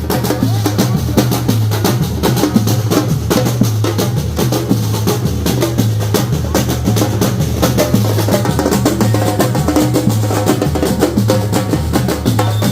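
Batucada: a samba percussion ensemble playing a fast, dense drum rhythm over a steadily repeating low drum pattern.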